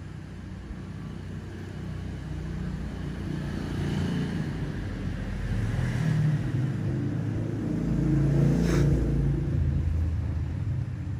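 Low motor vehicle engine rumble that swells and fades, like a vehicle passing close by, loudest about six and nine seconds in.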